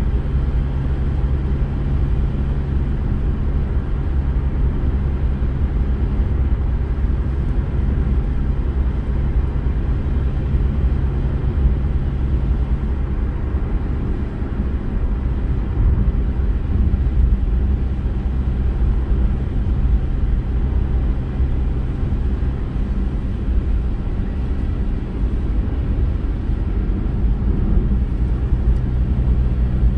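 Steady in-cabin noise of a car driving on a wet road: a low engine and road drone with an even hiss from the tyres on wet asphalt.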